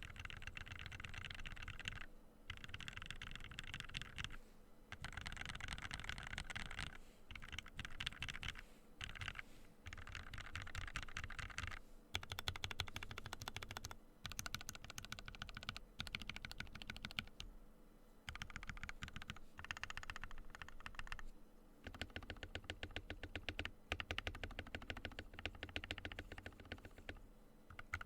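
Fast typing on a Ducky One 2 Mecha mechanical keyboard with Gateron Ink Black v2 linear switches, lubed with Krytox 205g0 and fitted with switch films. The keystrokes come in dense runs of a few seconds, broken by short pauses.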